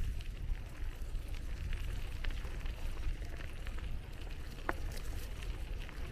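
Wind rumbling steadily on the microphone while cycling, with scattered light clicks and ticks, the sharpest a little before the end.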